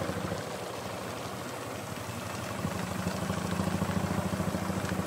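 A small engine running steadily with a fast, even pulse, getting a little louder about halfway through.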